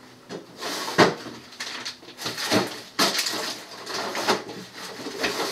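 Knocks, clatter and rustling of packages and containers being handled at an open refrigerator, with a sharp knock about a second in and a longer rustle about three seconds in.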